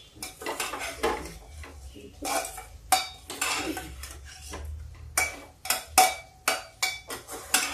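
A long metal spoon stirring broccoli in an aluminium pressure cooker, with irregular clinks and scrapes of metal against the pot.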